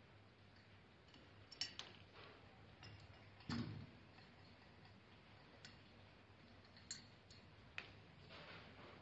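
Faint, scattered clicks and clinks from hands working the metal parts of a disassembled transfer pump, with a duller knock about three and a half seconds in.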